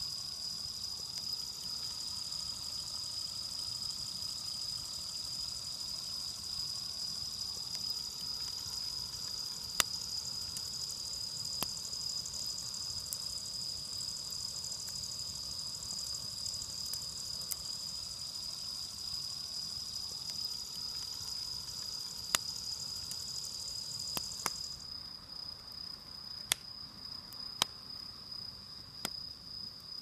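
Crickets chirring steadily at night, with a wood campfire of cedar branches crackling in a metal fire grill: a dozen or so sharp, isolated pops. A second, higher trill cuts off about five seconds before the end.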